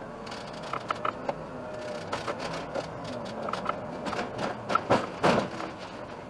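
Cabin noise inside an Iveco Urbanway city bus on the move: steady running noise with quick, rapid rattling and clicking throughout, and a louder rush of noise a little after five seconds in.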